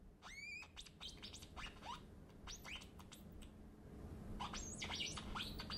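Homemade chip oscillator circuit sounding through a small powered speaker: short chirping tones that slide and jump in pitch while a finger bridges the connection. The skin's resistance sets the pitch, which rises as the resistance falls; the chirps come thicker near the end.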